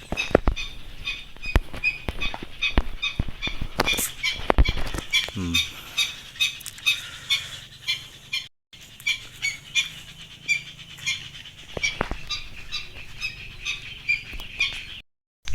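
A bird repeating a short, high chirp a couple of times a second, with a few sharp knocks in between.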